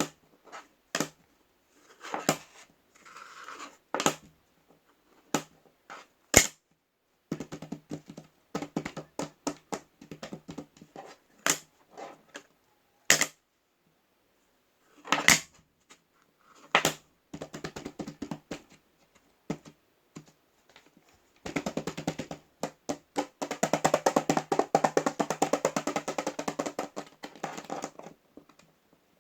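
Tapping on a mirror: scattered sharp taps, then a long run of fast, dense tapping from about two-thirds of the way in, louder toward the end.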